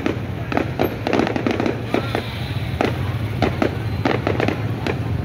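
Fireworks bursting in rapid, irregular bangs, several a second, over a steady low hum.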